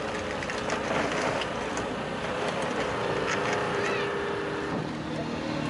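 Hydraulic rescue equipment working at 720 bar: the power unit's motor runs with a steady drone while the hydraulic cutter bites into a car's roof pillar, with scattered cracks and crunches from the metal. About five seconds in, the drone's note drops lower.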